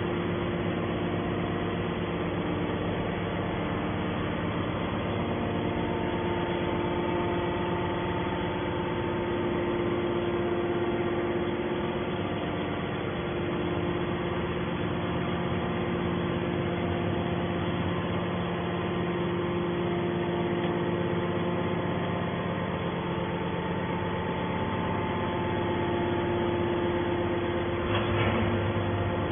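Hydraulic scrap-metal baler running steadily: a continuous machine hum carrying several steady tones that swell slightly now and then, with a brief clatter near the end.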